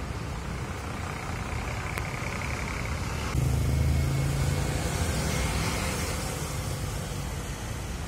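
Diesel engines of intercity coach buses. One coach drives away, then after an abrupt cut about three seconds in, a louder coach engine runs with a steady low drone as the bus pulls out onto the road.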